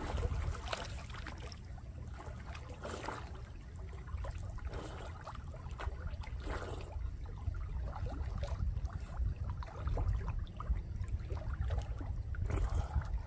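Lake water splashing and sloshing close by as a person swims through it, in loose swells every second or two, over a steady low rumble.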